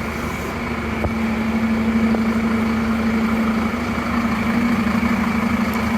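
Scania coach's diesel engine running steadily at low revs as the coach pulls away, a constant drone that gets slightly louder about halfway through.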